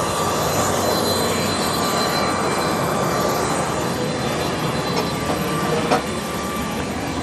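Jet aircraft engine running steadily, a steady rushing noise with a thin high whine over it, and a short knock about six seconds in.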